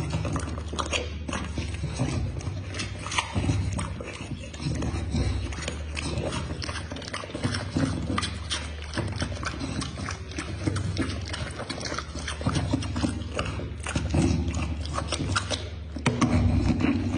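A bully-breed dog chewing noisily with its mouth open and smacking its lips: a dense run of clicks and smacks over a steady low hum, louder about a second before the end.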